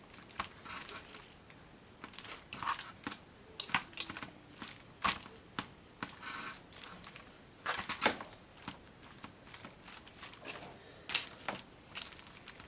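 Meat-shredding claws pulling apart cooked pork butt: irregular tearing and scraping with sharp clicks where the claws knock together or strike the pan.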